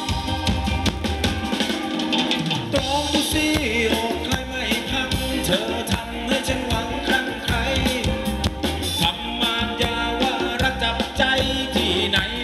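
Live band playing upbeat Thai ramwong dance music, with a steady drum beat and bass under a melody line.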